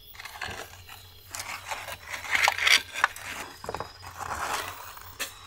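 Metal baking tray scraping and knocking against the mouth and floor of a clay dome oven as it is pushed in and shifted, in irregular scrapes with a few sharp clicks.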